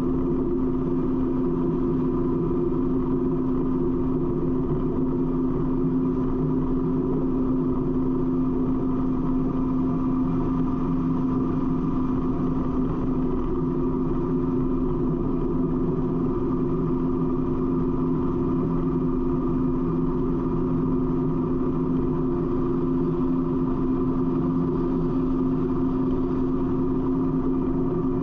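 Harley-Davidson touring motorcycle's V-twin engine running at a steady highway cruise, with wind noise over it.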